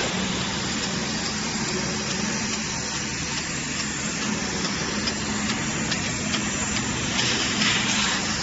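Steady machine noise with a low hum and a few faint clicks, typical of a power punch press and its CNC sheet feeder running.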